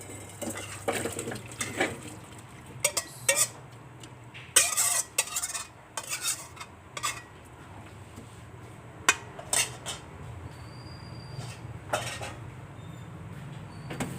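A metal spoon and cookware clinking, knocking and scraping against a cooking pot as food is transferred and stirred, in irregular strikes with a busier flurry about five seconds in. A steady low hum runs underneath.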